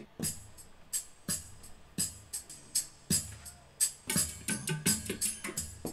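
Bass tabla strokes played through the speakers of an interactive painting as it is touched: an irregular run of drum strokes, several of them deep with a falling pitch, coming faster towards the end.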